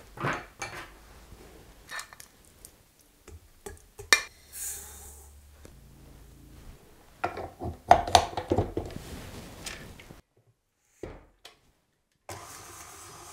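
Glass dishes and a stainless steel mixing bowl clinking and knocking a few scattered times as butter, sugar and salt are tipped into the bowl.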